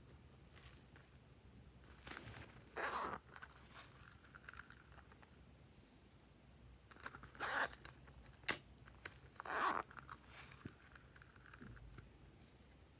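Slime being squeezed and worked by hand: a few short squishing bursts, with one sharp click partway through.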